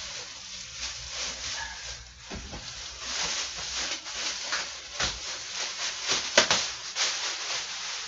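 Crinkly rustling of packaging being pulled off a new PC case, with a dull knock about five seconds in and a sharp snap a little after six seconds in.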